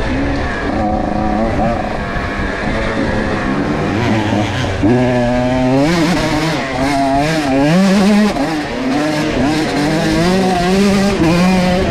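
125cc two-stroke dirt bike engine revving hard, its pitch climbing and dropping again and again as the throttle is worked, with the rises coming faster in the second half.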